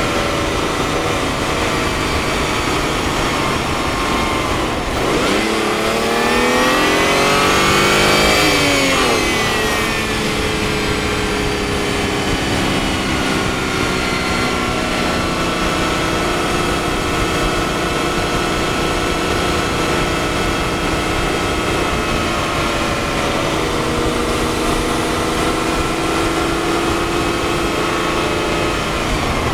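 Twin-turbo BMW engine, heard through a microphone in the engine bay, running at a steady cruise. About five seconds in it pulls harder, rising in pitch and getting louder for about three seconds, then eases back to a steady cruise.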